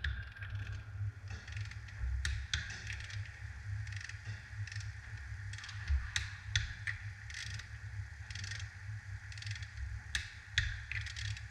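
Irregular metallic clicks, clinks and knocks of hand tools and steel parts as a flywheel is fitted to a diesel engine block, over a steady low hum.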